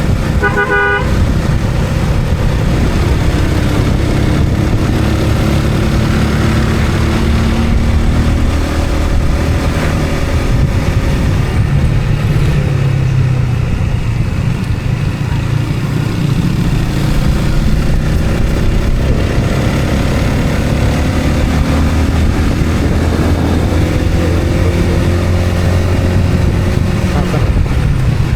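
Motor vehicle engine running steadily while travelling in road traffic, its pitch rising and falling slowly with speed. A brief horn toot sounds about half a second in.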